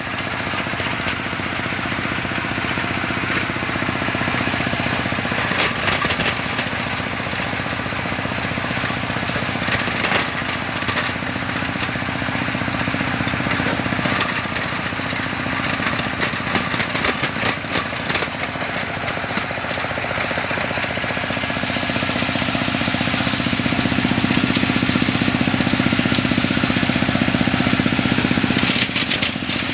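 Engine-driven river-stone crusher running: a steady engine hum under a dense, continuous rattling clatter of the grinding mechanism.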